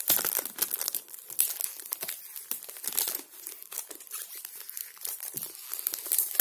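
Clear plastic wrap crinkling and tearing as it is picked at and peeled off a cardboard perfume box: a dense run of small, irregular crackles.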